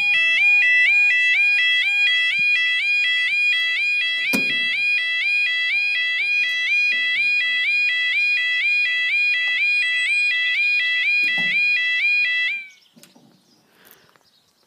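Level crossing warning alarm (yodel) sounding: a loud two-tone warble, stepping quickly back and forth between two pitches, that cuts off suddenly about twelve and a half seconds in. A sharp knock about four seconds in.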